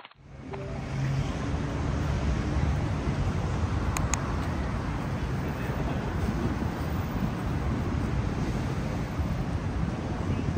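Steady city street noise, mostly road traffic, fading in over the first second, with a brief high tone about four seconds in.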